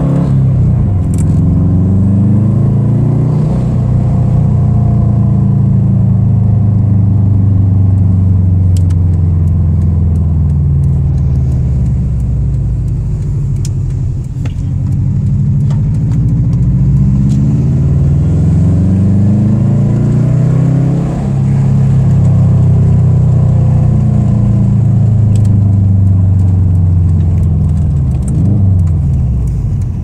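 2008 Subaru WRX's EJ255 turbocharged flat-four boxer engine pulling through the gears, its pitch climbing several times and dropping back at each gear change. The engine has a slight rod knock, hard to hear under the engine note.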